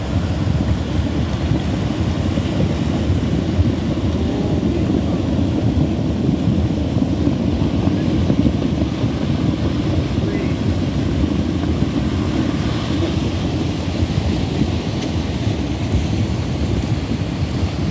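Flash-flood debris flow of mud and tangled wood moving down a rocky creek bed: a steady, loud low rumble.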